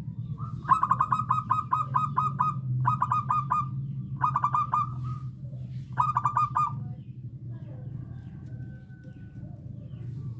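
Zebra dove (perkutut) singing: four quick runs of rapid staccato cooing notes, the first the longest, over a steady low hum.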